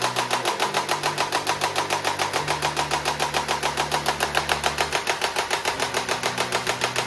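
Toy Type 95 assault rifle firing on full auto, a steady run of sharp clicks about nine a second, over background music with low held notes.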